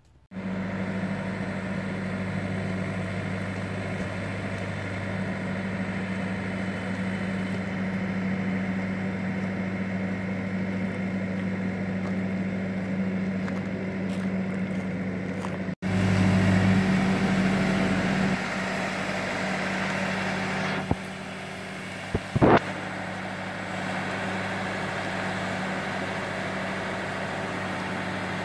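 Boat travel lift's engine running with a steady low hum as the hoist carries a slung boat. Around three quarters of the way through there are a couple of short whines gliding in pitch.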